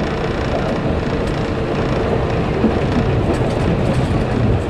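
Cabin noise of a JR 113 series electric train's motor car running along the line: a loud, steady rumble of wheels and traction motors, with a faint steady hum. The camera rests against the window, so the car's vibration comes through the microphone.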